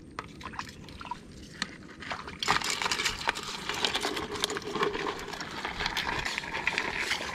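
A few faint clicks of metal crab tongs and a plastic bucket. Then, from about two and a half seconds in, steady splashing and sloshing of shallow water over mud, full of small crackles, as someone wades and works in the tidal pool.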